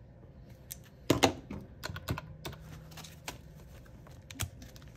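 A string of sharp clicks and plastic rustles from a pink cash-envelope ring binder, as its zippered plastic envelope pages are turned over on the metal rings. The loudest clicks come just after a second in.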